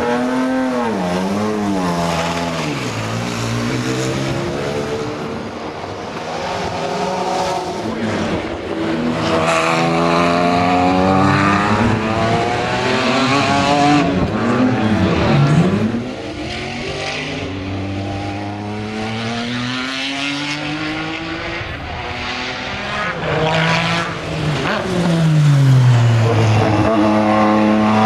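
Jaguar XJR-16's 3-litre twin-turbo V6 race engine, revved in short blips at first, then run hard with its pitch climbing in long sweeps and falling away again, a steep drop in pitch near the end.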